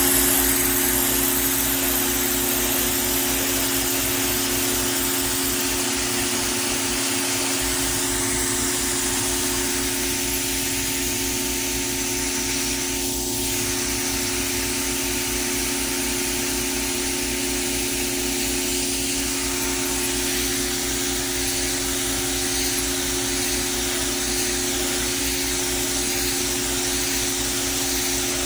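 Pressure washer running steadily, its spray hissing over a constant motor hum.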